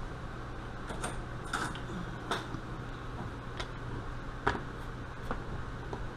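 A handful of sharp, irregularly spaced metal clicks and ticks as a screwdriver works the screws of a Carter mechanical fuel pump and the pump body is handled, over a steady low hum.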